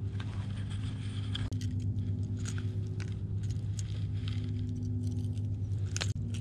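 Light metallic clinks and rattles of a topwater lure's treble hooks and a pair of pliers as the hooks are worked out of a largemouth bass's mouth, over a steady low hum.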